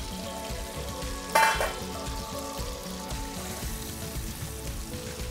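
Fish fillets topped with dates sizzling in olive oil in an uncovered frying pan. A short ringing clink of metal sounds about a second and a half in.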